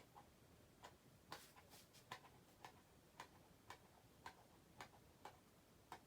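Minka Aire Supra ceiling fan coasting down after being switched off: faint, sharp ticks about two a second, spacing out slightly near the end as the blades slow.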